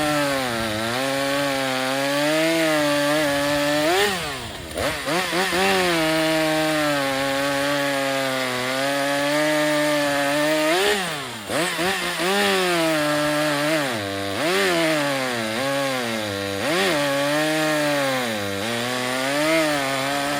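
STIHL MS400.1 two-stroke chainsaw running at high revs while cutting wood. The engine pitch sags under load and recovers several times, with the deepest dips about four and eleven seconds in.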